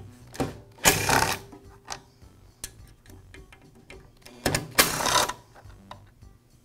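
Cordless electric screwdriver with a Torx bit running in two short bursts, about a second in and again about four and a half seconds in, as it backs screws out of the scroll saw's plastic switch cover.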